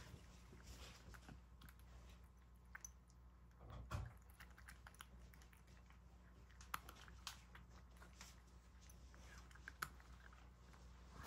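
A cat eating dry kibble mixed into wet food from a bowl: faint, irregular crunching and clicking as it chews, with one louder knock about four seconds in.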